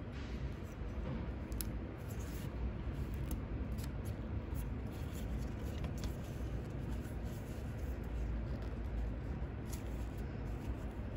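A small grey pad rubbing along the edge of a thin leather card holder, smoothing the edge. It makes a steady scratchy scraping with scattered small clicks and a low rumble of handling.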